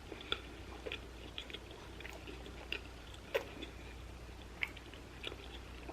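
A person chewing food close to the microphone: soft, scattered mouth clicks and smacks.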